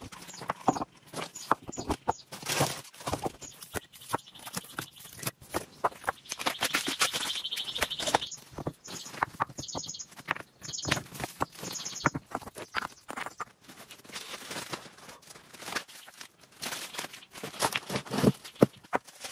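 Irregular knocks, clicks and rustling throughout. A high steady chirring runs for about four seconds in the middle, followed by a string of short high chirps.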